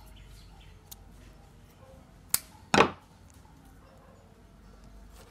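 Scissors snipping monofilament fishing line at a tied swivel knot: a sharp click a little over two seconds in, followed less than half a second later by a louder, short knock.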